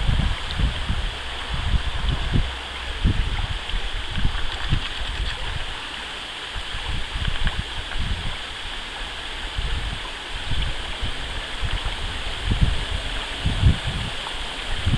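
Shallow stream running over stones, a steady rushing babble, with irregular low rumbles and thumps throughout.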